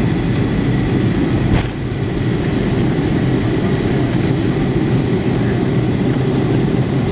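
Boeing 757 cabin during the takeoff roll: the twin jet engines at takeoff power make a steady low rumble. A single click comes about a second and a half in.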